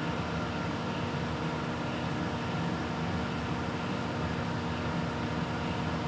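Microwave oven running with a steady, even hum, heating a bag of microwave popcorn before any popping is heard.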